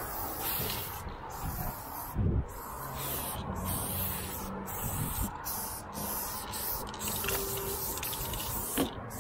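Aerosol spray-paint can spraying in short, repeated bursts, its hiss stopping and starting many times as a line is painted. A dull thump about two seconds in.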